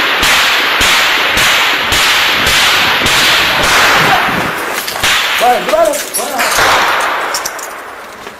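Rifle gunfire in a firefight: sharp shots about twice a second over a continuous loud crackling din.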